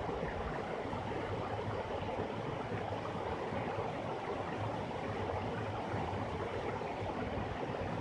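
Small waterfall running over rock ledges into a pool: a steady, even rush of water.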